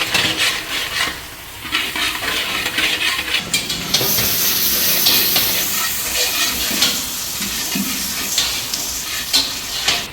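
Chopped onions sizzling in hot soybean oil in a frying pan, with a utensil scraping and clattering against the pan as they are stirred. The sizzle turns louder and more hissing about four seconds in.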